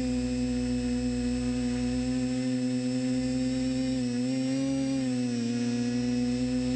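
Drone motors and propellers running steadily, heard from the craft's own onboard camera as a loud pitched hum. The pitch rises briefly about four seconds in and dips just after five seconds as the throttle changes.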